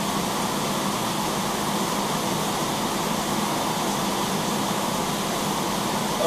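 Steady mechanical background noise: an even rushing hiss with a constant low hum, like a running fan or air handler. Laying the film on the water makes no distinct sound.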